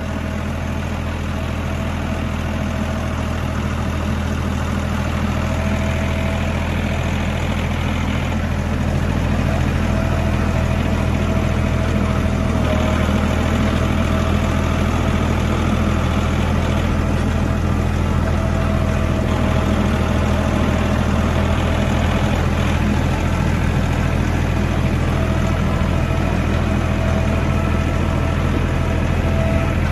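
Kioti compact tractor's diesel engine running steadily while driving, heard from the operator's seat, with a steady whine above the engine's low drone. It gets slightly louder over the first several seconds.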